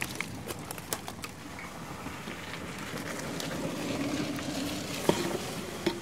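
Dry leaves, twigs and branches crackling and rustling as someone pushes through brush, with scattered sharp twig snaps and two louder snaps near the end.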